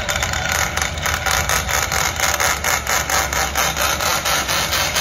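Electric hand drill boring through a steel flange, the motor running steadily under load with a fast, even pulsing as the bit cuts the metal.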